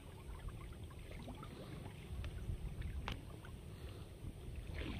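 Small wooden boat moving through shallow water: water lapping and trickling against the hull, with scattered light knocks and one sharper click about three seconds in, over a steady low rumble.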